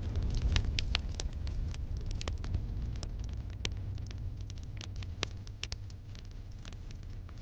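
Wood fire crackling in a fireplace: irregular sharp pops and snaps, several a second, over a low steady rumble of the burning fire.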